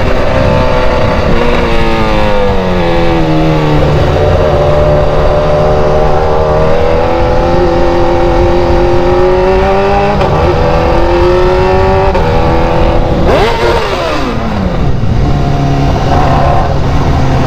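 Loud BMW engine with a straight-piped exhaust pulling hard: the revs climb and hold high, dip at gear changes about ten and twelve seconds in, then fall steeply around thirteen seconds and settle into a lower steady drone.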